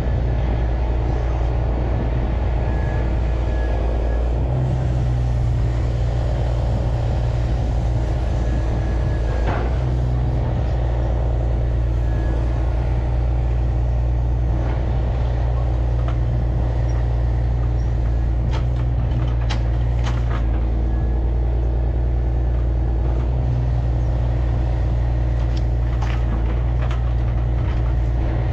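Heavy truck's diesel engine running steadily with a deep drone, rising a little in pitch a few times, with a few sharp knocks over it.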